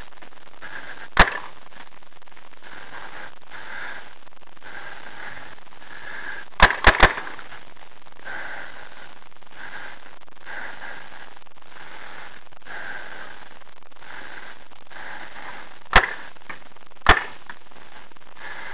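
Paintball marker shots: six sharp cracks, one about a second in, a quick burst of three around seven seconds in, and two more a second apart near the end.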